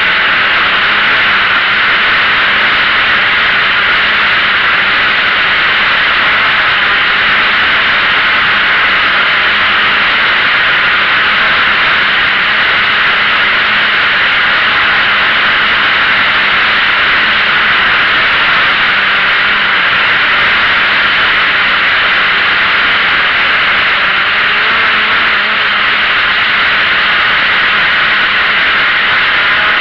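Drone propellers and motors heard from the camera on board: a loud, steady hissing whir with a faint low hum underneath, unchanging throughout.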